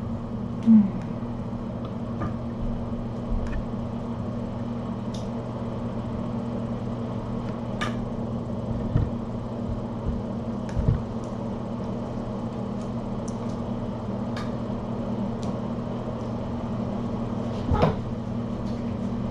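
A steady low hum, with a few soft knocks and clicks scattered through it; the loudest knock comes about a second in and another near the end.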